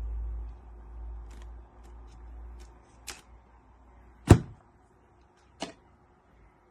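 A low rumble that fades out, then a few sharp clicks and knocks, the loudest a little over four seconds in.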